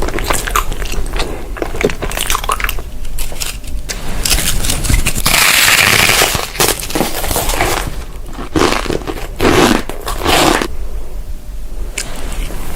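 Close-up eating sounds: crisp food being bitten and crunched, with many sharp crackles, loudest about five to six seconds in.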